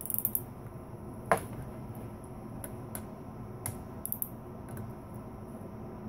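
Torque wrench and socket clicking and tapping on the camshaft bearing cap nuts of a bare cylinder head as they are re-torqued to 15 ft-lb: a few small metallic clicks, with one sharp click about a second in.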